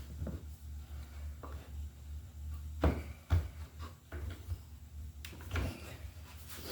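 Scattered knocks and clunks of wood and tools being handled on a workbench, with two sharper knocks about three seconds in, over a faint steady low hum.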